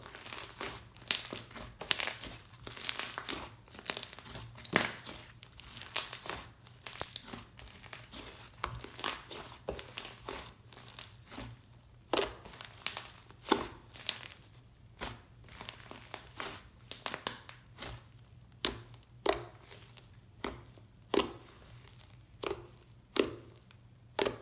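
Inflated icee-jelly hybrid slime, made of clear glue and instant snow, being squeezed and pressed by hand: a run of irregular crinkly crackles and pops, several a second at first and more spaced out later.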